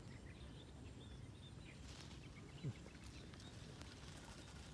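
Near silence: faint outdoor ambience with a few faint, short high chirps, and one brief low, falling sound a little over halfway through.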